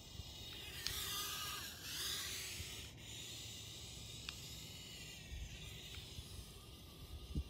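Drone flying some way off: a faint high whine from its propellers over a hiss of wind on the microphone, the whine shifting in pitch between one and two seconds in.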